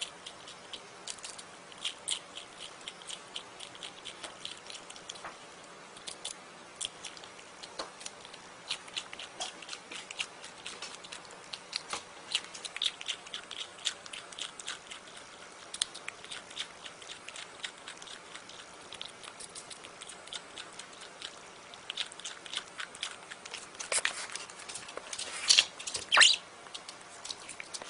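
A prairie dog chewing and crunching a slice of raw cucumber: a quick run of crisp, wet clicks. Near the end, two louder short sounds stand out.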